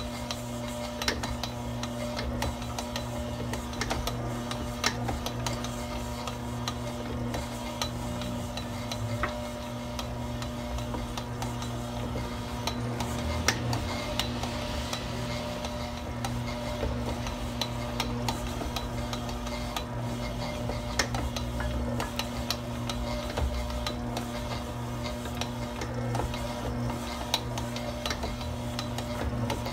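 Stand mixer motor running steadily while it kneads a stiff, enriched bread dough in a steel bowl, with the dough slapping around the bowl. Scattered sharp clicks and knocks come as butter is worked in.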